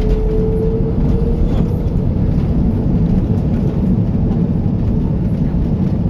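Cabin noise of an Airbus A330-200 rolling along the runway after touchdown: a steady low rumble of the engines and the landing gear on the tarmac, with a faint whine rising slightly over the first second and a half.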